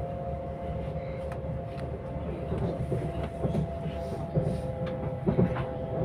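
Passenger train running, heard from inside the carriage: a steady low rumble with a steady two-note whine, and irregular clicks and knocks of the wheels that grow after a couple of seconds, with a few louder knocks near the end.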